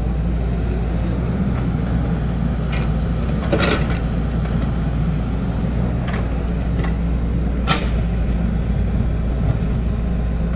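Hydraulic excavator's diesel engine running steadily while digging, with two short knocks from the bucket or arm, one about three and a half seconds in and one near eight seconds.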